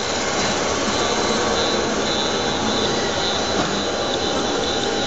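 Haas CNC lathe running with its spindle turning during a hand-jogged facing cut on the end of the part: a steady, even rushing noise with a faint high whine.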